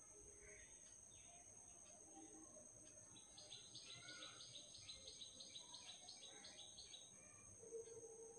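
Near silence: room tone with a steady faint high whine. For about four seconds in the middle comes a faint, rapid chirping trill of about five chirps a second.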